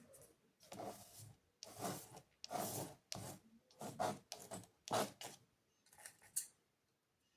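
A paintbrush scrubbing and scratching across the painting surface in a run of short strokes, roughly one to two a second, stopping near the end.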